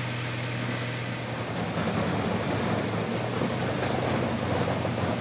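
Bandit Beast 3680 horizontal grinder's Volvo diesel engine running with a steady drone. From about two seconds in it grows louder and rougher as the machine takes a load of logs into its infeed.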